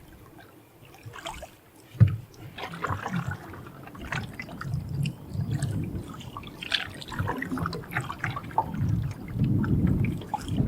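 Canoe being paddled: water splashing and trickling with the paddle strokes, in uneven swells, and a single sharp knock about two seconds in, typical of the paddle striking the hull.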